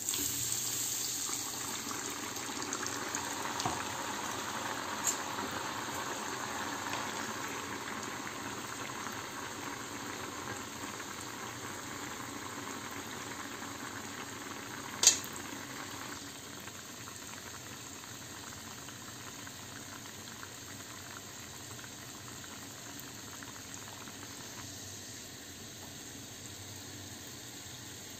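Liquid bubbling steadily in a pan on the stove, slowly growing quieter, with one sharp click about fifteen seconds in.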